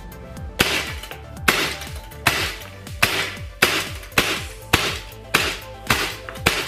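CO2-powered airsoft gun firing a quick string of about ten shots, one every half-second to second, each a sharp crack with a short ring. Background music plays underneath.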